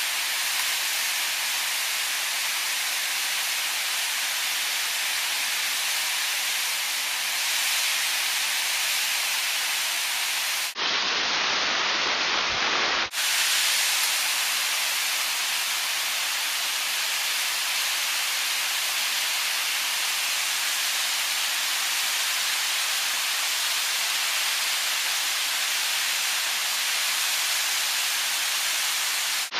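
Waterfall rushing and spraying over rock, a steady hiss close to the microphone. For about two seconds near the middle the sound turns abruptly duller, then returns.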